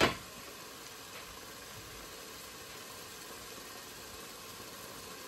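Garlic frying in oil over high heat, a steady sizzle, opened by a single clink of a spoon against the pot.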